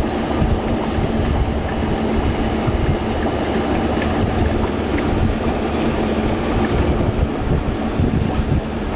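Steady rumbling noise with a constant low hum running through it.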